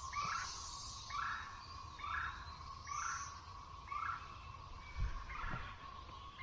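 Periodical cicadas in chorus: a steady high-pitched drone, with a short call repeating about once a second over it.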